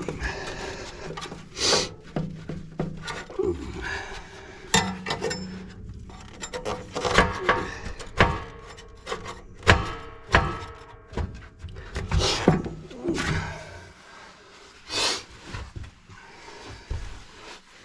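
Irregular knocks, clunks and scraping of the firebrick and grate inside an ACR Woodpecker wood stove as a stuck back brick is wiggled and worked forward, the brick not coming forward easily.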